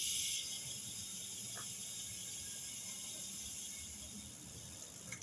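A steady, high-pitched hiss of a pressurised jet, starting abruptly and cutting off after about five seconds.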